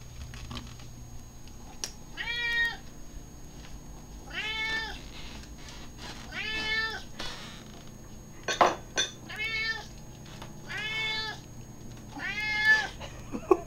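Hungry domestic cat meowing repeatedly for food: six meows about two seconds apart, each rising and falling in pitch. Two sharp knocks are heard, the louder one about two-thirds through.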